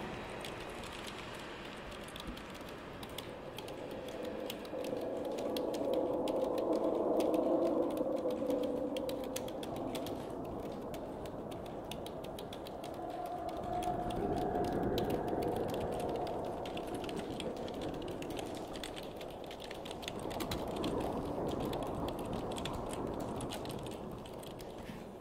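Continuous typing on computer keyboards, a dense patter of key clicks, over a low murky drone that swells and fades several times.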